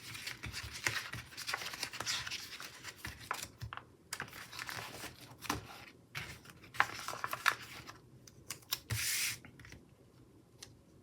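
Paper and stickers being handled on a planner page: irregular soft crinkles, rustles and small taps, with a longer rustle about nine seconds in.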